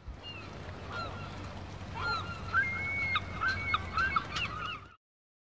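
A flock of birds calling, many short arching calls in quick succession over a low steady rumble, growing busier about two seconds in and cutting off abruptly near the end.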